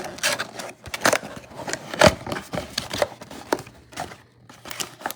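Plastic wrap and cardboard packaging crinkling and tearing as a sealed box of trading cards is opened by hand. The sound is an irregular run of sharp crackles and clicks, loudest about two seconds in.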